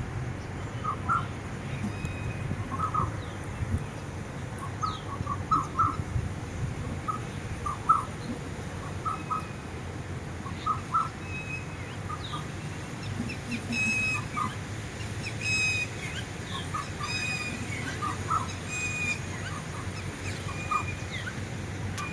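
Small birds chirping, with many short repeated chirps and some higher notes, over a steady low rumble of wind on the microphone.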